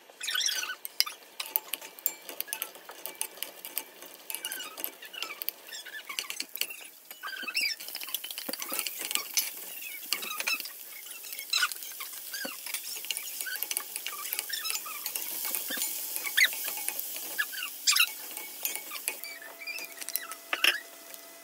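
Stir-frying in a nonstick wok: a wooden spatula clicks and scrapes against the pan as diced onion and sliced Chinese sausage are stirred, and oil sizzles with a steady hiss through the middle stretch. Near the end cooked rice is tipped in from a stainless steel bowl. Short high squeaks recur throughout.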